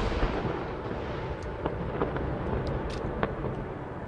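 Rumble of large aerial firework shell bursts rolling on and slowly fading, with a few faint, scattered pops from smaller shells.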